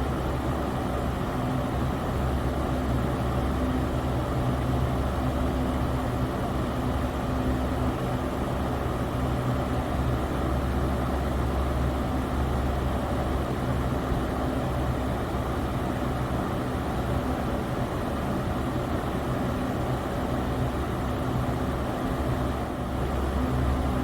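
Electric fan running steadily: a constant whooshing hiss of moving air over a low motor hum.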